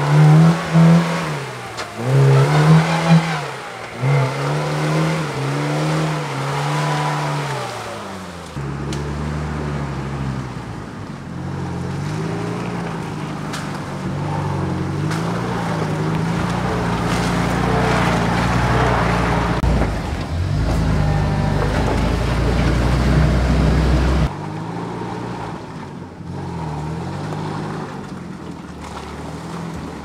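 Off-road engines revving up and down in repeated hard surges as a Lada Niva drives through deep mud. After a cut comes a steadier engine drone over a deep rumble, as the UAZ Bukhanka van drives. It cuts off sharply about 24 seconds in and gives way to quieter engine revving that rises and falls.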